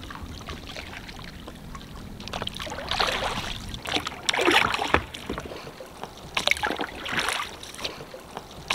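Oars of an inflatable dinghy being rowed, each stroke a swish and splash of water at an uneven pace of about one a second.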